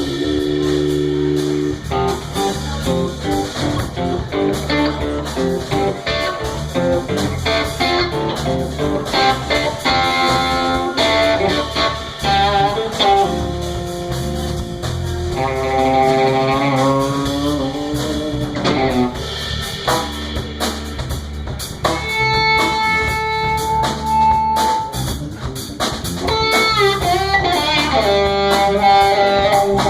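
Electric guitar playing a bluesy lead of held and bending notes over bass and drums.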